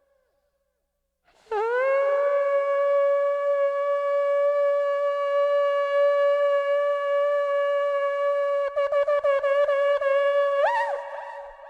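Shofar blown in one long blast. It scoops up into a steady held note, breaks into rapid stutters about nine seconds in, and jumps up in pitch before fading out.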